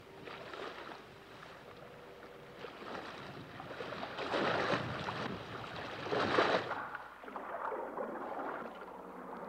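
Sea water rushing and splashing along a trimaran sailboat's hull as it moves under sail, swelling to two loud washes in the middle.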